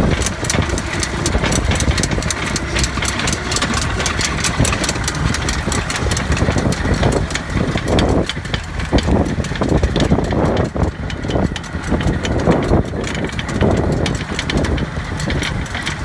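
Tractor engine running steadily as it pulls an old corn planter, with a rapid clatter of ticks over the engine note for the first several seconds.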